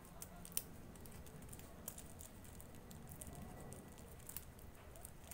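Faint crinkling and ticking of thin clear plastic wrap being handled as a rubber band is tied around it, with one sharper click about half a second in.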